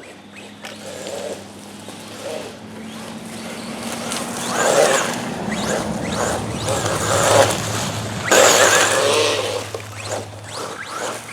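Arrma Big Rock 3S BLX electric RC truck on chainsaw-chain wheels driving through dirt and mud, throttle surging in repeated bursts. The loudest surges come about halfway through and again after about eight seconds, over a steady low hum.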